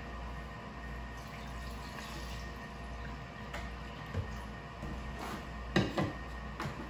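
Milk pouring from a plastic gallon jug into a glass measuring cup, followed by a few sharp knocks near the end, the loudest a pair close together.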